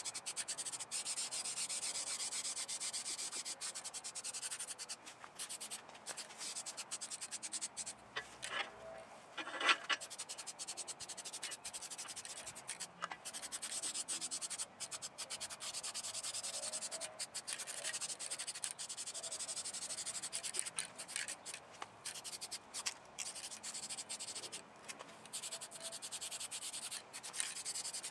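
Aerosol spray-paint can hissing in repeated passes with short breaks between them, laying a heavier second coat of engine paint onto an engine block. A brief louder knock comes about ten seconds in.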